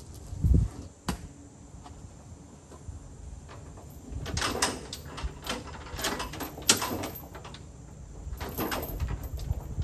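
Handling noises: a heavy thump about half a second in, a sharp click soon after, then several bursts of scraping and rattling later on.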